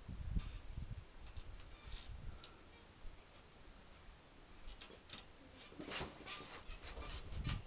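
Scattered light clicks and scrabbling of an English bull terrier's claws on a garden swing seat as he clambers up onto it, thickest about six seconds in. A low rumble on the microphone in the first second.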